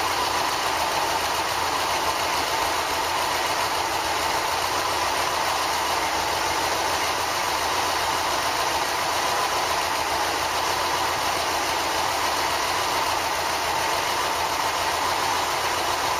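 Freshly rebuilt Ford 2.0 Pinto four-cylinder engine running steadily at idle without its air cleaner fitted.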